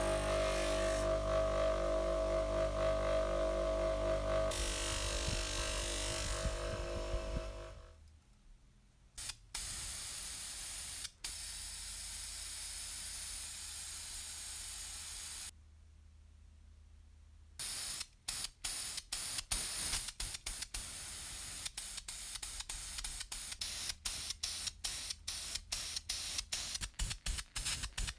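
Compressed-air spraying hiss: a steady stretch of spray, then many short spray bursts in quick succession. Before it, a steady multi-tone hum fades out about eight seconds in.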